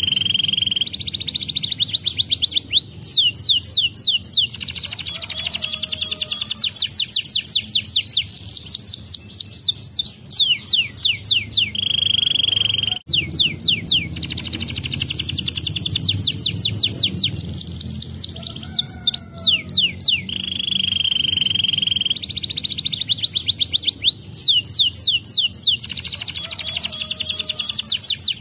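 Domestic canary singing a long song of fast trills, rapid repeated notes and short held whistles. The same stretch of song plays again about halfway through, as a loop.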